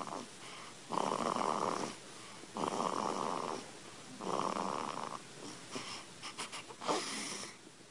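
Three-week-old baby snoring: three loud snores about a second long each, coming regularly about every second and a half. After them come a few quick clicks and one short, sharp sound near the end.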